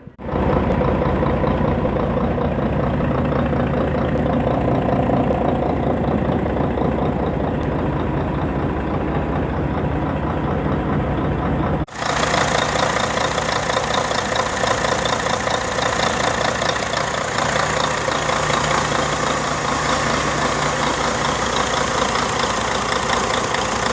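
Freshly rebuilt Weichai WP10 inline-six diesel engine idling steadily with diesel clatter. About halfway through the sound changes abruptly to a brighter, hissier clatter.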